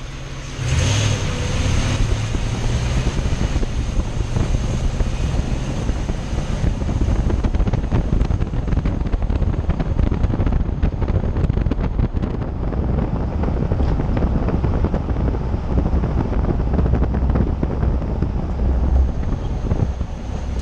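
A 2006 Toyota Tundra running, with a steady low engine hum under a rushing noise and a few faint ticks in the middle.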